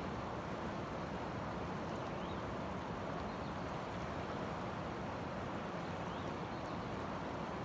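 Steady rushing of a fast-flowing river, an even noise with no pauses, and a few faint high chirps over it.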